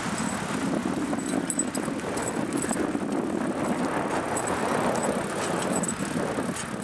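A bicycle riding quickly over grass with a Siberian husky running alongside: a steady rushing rumble of tyres and moving air, with scattered light clicks.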